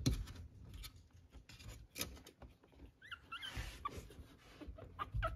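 Three-week-old Chihuahua puppies playing: two or three short, high squeaks about three seconds in, among scattered knocks and rustling.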